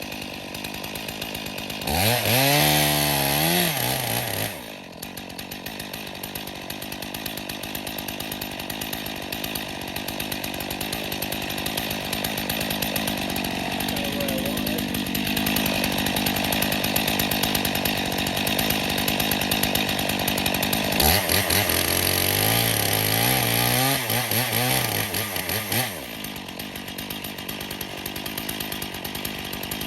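Stihl chainsaw running through a felling cut in a cedar tree, revved hard twice: about two seconds in and again about twenty-one seconds in, for a few seconds each. It runs steadily in between.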